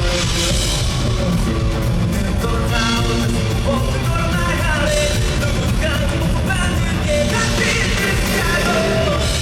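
Live rock band playing loudly through the concert sound system, with drums, bass and guitars and a voice singing over them.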